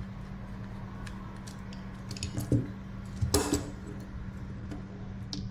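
Small metal parts of a titanium folding knife clicking and clinking as it is taken apart at the pivot screw. There are scattered light taps, with louder clinks about two and a half and three and a half seconds in, over a steady low hum.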